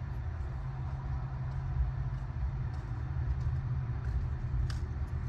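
Steady low rumble, with a few faint clicks near the end as a screwdriver works in a console cup holder.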